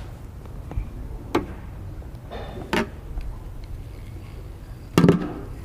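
A few sharp knocks and clicks, about three seconds apart, from fishing gear being handled against the hull of a plastic sit-on-top kayak. The loudest knocks come as a quick pair about five seconds in.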